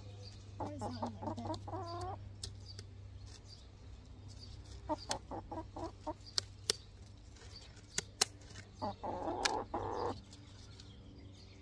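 A hen clucking in short bursts while held, with a few sharp snips of scissors cutting through her wing feathers and a short rustle near the end.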